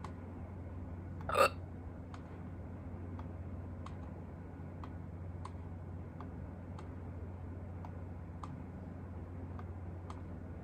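A single human hiccup about a second and a half in: a short, sharp catch of breath with a brief voiced squeak, over a steady low background hum.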